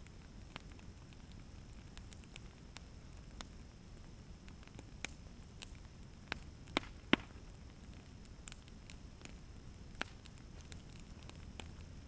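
Wood fire crackling, with scattered sharp pops; the loudest are three pops close together about halfway through. A low steady rumble sits underneath.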